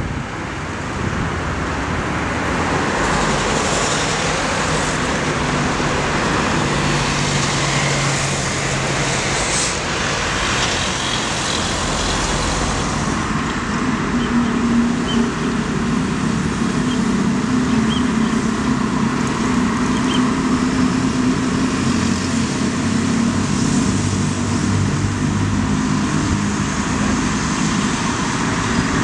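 Steady city road traffic: cars running and passing, with a low engine hum that grows stronger in the second half.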